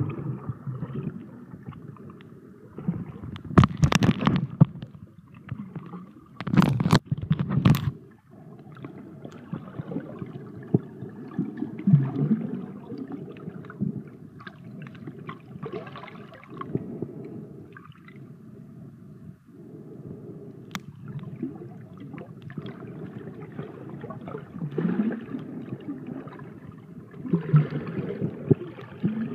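Muffled water gurgling and sloshing around an underwater camera. There are loud splashing bursts about four seconds in and again about seven seconds in.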